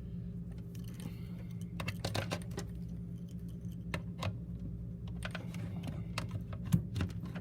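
Scattered clicks and light rattles of a laptop charger's plug and cable being handled and plugged in, the sharpest click near the end, over a steady low hum.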